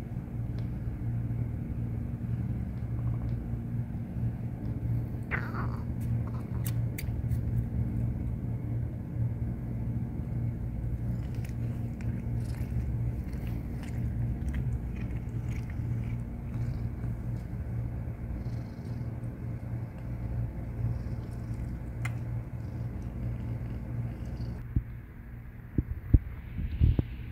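Mother cat purring steadily and low while her newborn kittens nurse against her. A kitten gives one short high mew about five seconds in, and there are faint small clicks. The purr drops away near the end, and a few sharp knocks follow.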